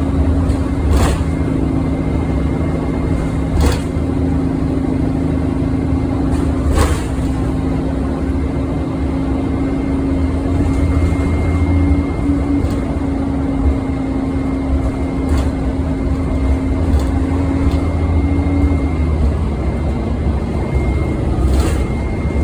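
Orion diesel city bus heard on board: a low engine drone under a loud steady whine from the engine cooling fan, which falls away about nineteen seconds in. A few short knocks and rattles come through.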